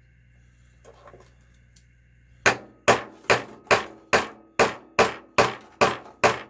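Light, evenly paced hammer taps on a 13 mm socket, about two and a half a second, starting about two and a half seconds in, driving a new ball bearing by its outer race into a Traxxas Pro 15 nitro engine.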